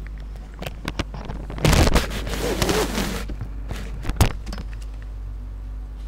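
Several sharp clicks and a second-and-a-half burst of rustling noise, loudest about two seconds in, over a low steady hum.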